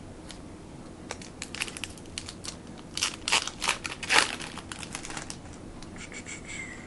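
Wrapper of a 1995 Skybox Premium football card pack crinkling and tearing as it is opened, a run of crackles and snaps loudest about four seconds in.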